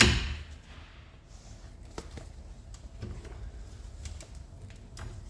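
Hand tools working on the brake line fittings: a sudden loud knock right at the start that fades with a hiss over about half a second, then a few light metallic clicks.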